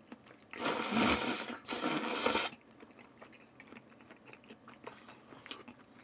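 A person slurping long strips of raw salmon: two loud, drawn-in slurps about a second in. They are followed by quiet chewing with soft wet mouth clicks.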